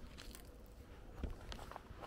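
Faint footsteps of a person walking on a dirt lane, a few soft steps, with a brief rustle of a jacket near the start.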